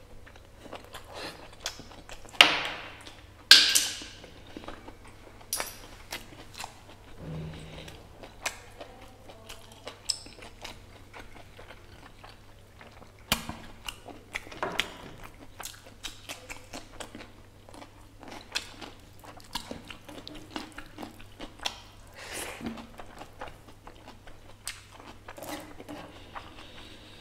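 Close-up wet chewing and mouth smacks from eating mutton nalli curry by hand, with many short clicks throughout and two loud slurps about two and a half and three and a half seconds in, while sucking on a marrow bone.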